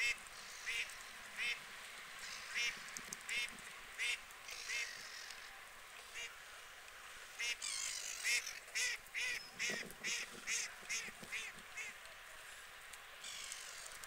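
Waterfowl calling on the water: a string of short, clipped calls, at first roughly every three-quarters of a second, then faster, about two or three a second, through the middle of the stretch.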